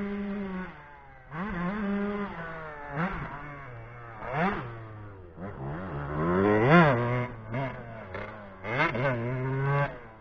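Two-stroke motocross bike being ridden hard over supercross jumps and whoops: the engine revs up and backs off again and again, its pitch rising and falling in quick sweeps. The loudest rev comes about two-thirds of the way through.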